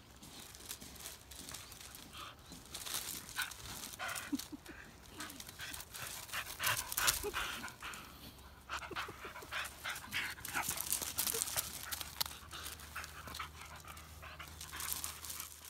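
A beagle-type dog panting and scuffling on gravel as it tugs and chews at a thick rope, with repeated crunching of stones and scraping sounds throughout.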